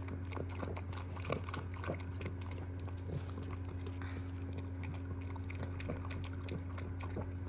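Miniature schnauzer lapping liquid from a ceramic bowl: a run of quick, irregular wet laps and clicks, over a steady low hum.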